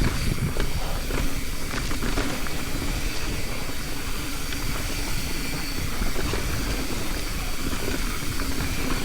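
Mountain bike rolling downhill on a sandy dirt trail: a steady rush of wind on the microphone and tyre noise, with a few short knocks and rattles from the bike over bumps.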